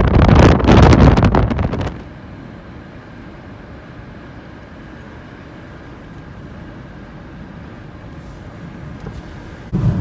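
Strong blizzard wind buffeting the microphone, cutting off suddenly about two seconds in. A steady, much quieter road noise of a car driving follows, and near the end a louder low rumble of the car comes in.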